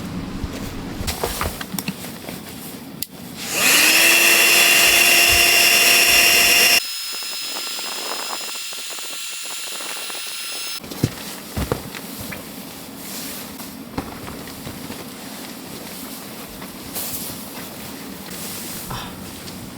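A small electric motor spins up and runs loud and steady for about three seconds, then carries on thinner and quieter for about four seconds before cutting off suddenly. Scattered light clicks and knocks sound around it.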